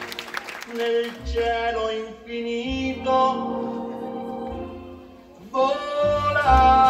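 Recorded dance-mix music with singing playing over the sound system, after cheering and clapping die away in the first second. The track fades down about five seconds in and a new section cuts in half a second later.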